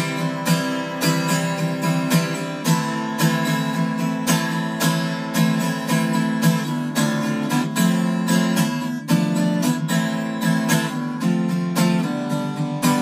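Gibson SJ-200 acoustic guitar strummed in a steady rhythm of full chords, playing a song's instrumental intro before the vocals come in.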